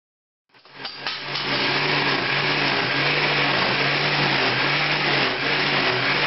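Countertop blender running, pureeing thick braised beef ragu. The motor cuts in about half a second in and then runs steadily with a low hum under a loud whir.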